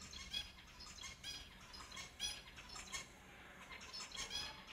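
Pet finches calling: short, high calls, about three a second in an irregular run, the loudest about half a second in and just after two seconds.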